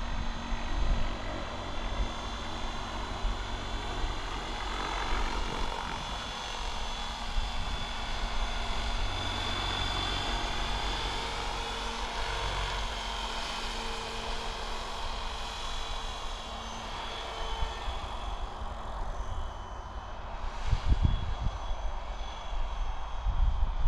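Mikado Logo 700 electric radio-controlled helicopter in flight: a steady whine from its motor and rotor blades, with tones that slide in pitch as it passes close about halfway through. Gusts of wind rumble on the microphone near the end.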